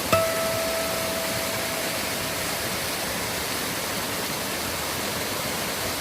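Valley stream water running steadily, a clear rushing noise. Just after the start a single musical note is struck and rings out for about two seconds.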